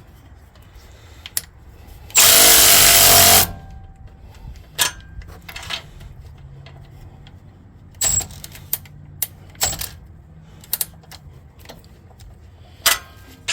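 A power tool, most likely an impact wrench, runs loudly for about a second and a half, snugging down the bolts on the air bag brackets before they are torqued. Scattered metallic clinks and knocks of wrenches and sockets follow.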